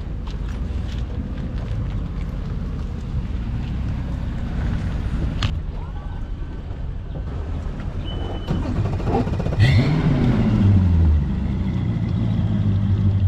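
An engine running steadily with a low hum, then revving up about ten seconds in and settling into a steady, higher hum.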